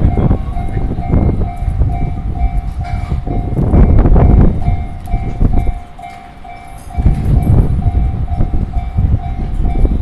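Japanese level-crossing warning bell ringing steadily, about two dings a second, over a loud low rumble and rush of a train passing the crossing. The rumble swells about four seconds in, drops away briefly near six seconds, and comes back about seven seconds in.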